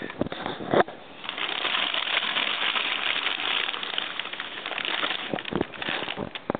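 Paper crinkling and rustling as a baby handles and tears it: a dense rustle from about a second in until near the end, with a few sharp clicks around it.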